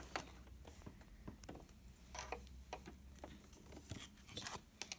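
Faint, irregular small clicks and taps of hands working at a sewing machine while threading it.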